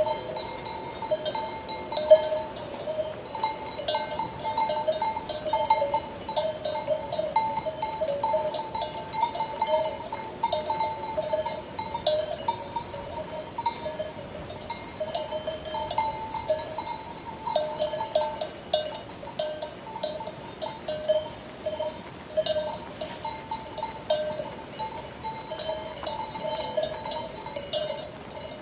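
Sheep bells clanking irregularly and without a break, with one sharper, louder clank about two seconds in.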